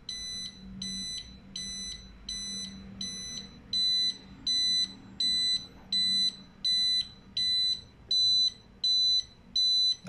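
Internal buzzer of an Eaton conventional fire alarm control panel beeping steadily, about one and a half high-pitched beeps a second, louder from about three and a half seconds in. This is the panel's warning tone sounding again after a reset while its zone and sounder circuits are still in fault.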